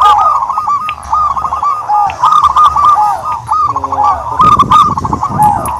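Turtledoves calling continuously: many short arched notes near the same pitch, repeated rapidly and overlapping. A lower, rougher sound joins in between about four and five and a half seconds in.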